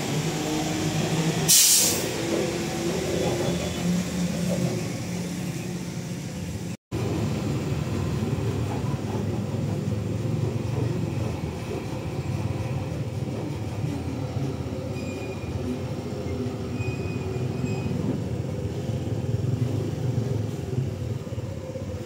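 Heavy truck engine running with a steady low rumble as the truck moves slowly, with a short sharp hiss about a second and a half in. The sound drops out for an instant about seven seconds in, then the rumble carries on.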